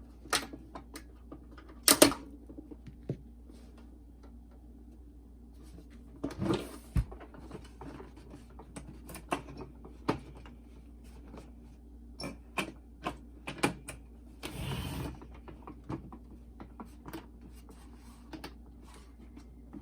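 Scattered clicks, taps and knocks of small plastic parts and tools being handled during a boombox repair, the loudest a sharp knock about two seconds in, with two brief rustles partway through.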